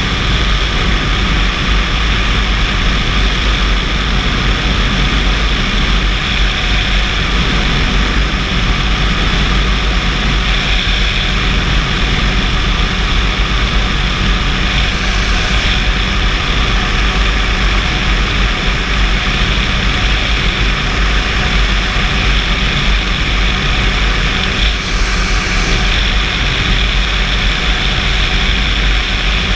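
Flex-wing microlight trike's engine and pusher propeller running steadily in cruise flight, mixed with the rush of air past the open cockpit.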